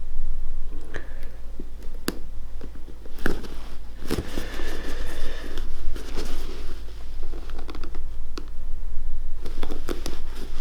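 Handling noises from a shoe being pressed and handled while super glue sets: scattered sharp clicks and scratchy rubbing, busiest about four to six seconds in, over a steady low hum.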